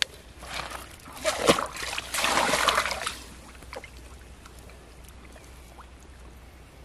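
A mesh net bag of live fish splashes into shallow river water about a second in, with sloshing for the next two seconds. After that there is only faint trickling and lapping.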